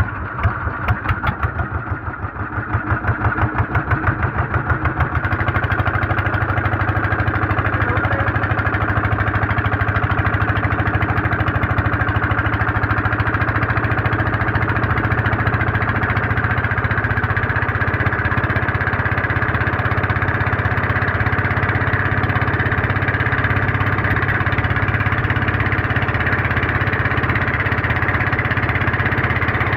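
Twin 24 hp dompeng single-cylinder diesel engines driving a wooden boat. They start with slow, separate chugging beats that speed up over the first five seconds, then run steady at high revs, the boat under way on a speed test.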